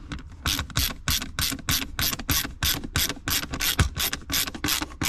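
Phillips screwdriver tightening a machine screw into a center-console armrest base plate, clicking in a steady rhythm of about three to four sharp clicks a second as it is turned.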